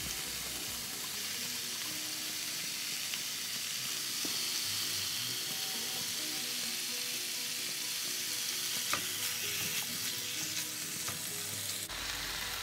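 Cubes of raw pork leg sizzling steadily in hot olive oil with browned onion in a frying pan, just after going into the pan. A few small clicks sound now and then.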